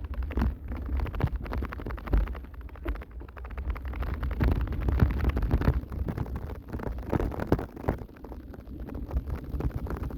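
Wind buffeting the microphone in a low rumble, with many irregular knocks and rattles, as of equipment jolting while being ridden over a rough path.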